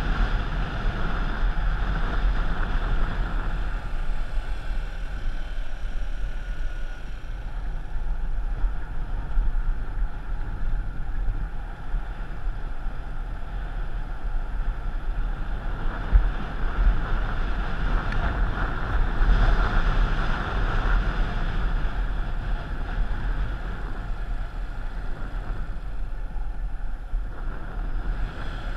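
Wind rushing over the microphone of a moving vehicle, with a steady low rumble underneath.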